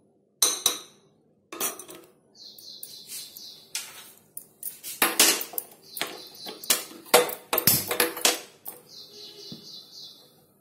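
Steel spoon clinking and scraping against a small black iron pan as ghee is knocked off it into the pan: a string of sharp clinks and taps, busiest in the middle.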